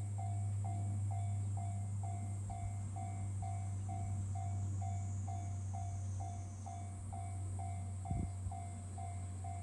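Japanese railway level-crossing warning bell ringing steadily, about two dings a second, each ding fading quickly, over a steady low hum. A brief thump comes about eight seconds in.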